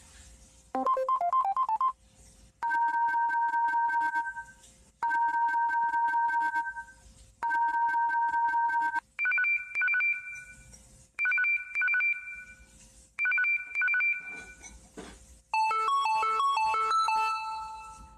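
LG K7 Android phone playing its preset ringing tones one after another. First comes a short rising run of notes. Then a two-note trilling electronic ring sounds three times, then a higher two-note trilling ring three times, and a short melodic tune starts near the end.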